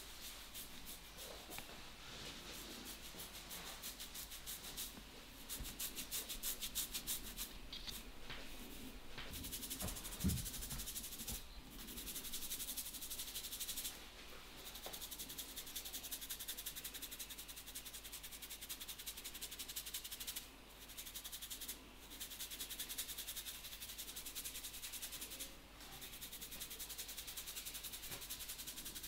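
A barber's hands rubbing and scrubbing through hair and over the scalp in a head massage, a fast rustling scratch that breaks off briefly several times. There is a soft thump about ten seconds in.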